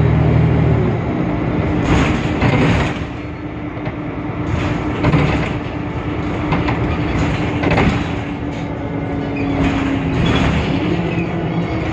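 Interior sound of a Temsa Avenue LF city bus on the move: its DAF PR 228 diesel engine running under a steady whine that rises slightly near the end. Repeated knocks and rattles from the body and fittings come about six times over the road.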